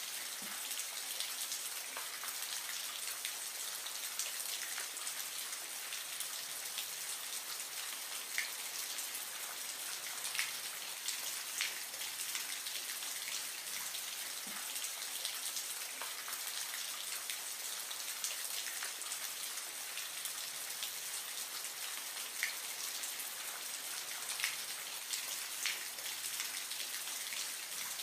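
Steady hiss of splashing water with small drip-like ticks every second or two.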